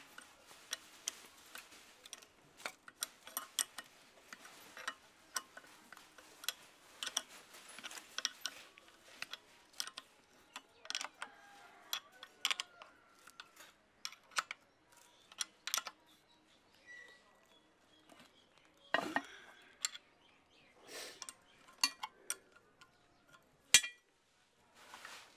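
Ring spanner clicking and clinking against the exhaust manifold nuts as they are turned down onto the cylinder head, a run of sharp, irregular metal ticks with the loudest clink about a second before the end.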